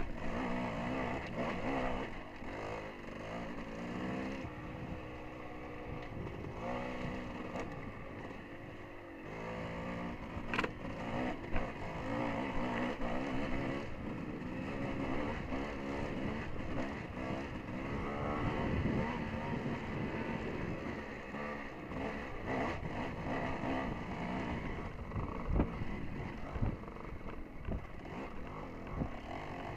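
Dirt bike engine running under a rider on a trail, repeatedly revving up and easing off, with a few sharp knocks along the way.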